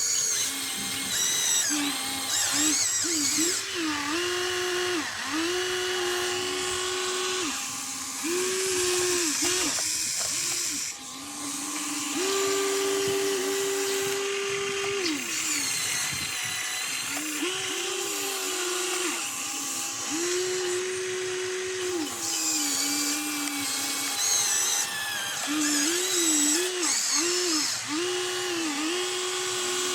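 Small electric motors of radio-controlled construction toys whining as they are driven. The whine starts and stops every second or two, stepping up and down in pitch as the controls are worked.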